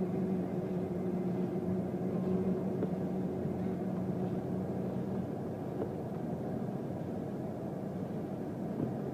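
Rough sea breaking against a sea wall and groyne in a storm, a steady low rumbling roar of surf, with wind on the microphone. A steady low hum runs underneath and fades out about five seconds in.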